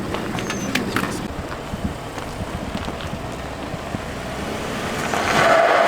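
Pickup truck engine running, with wind noise on the microphone; it grows louder near the end.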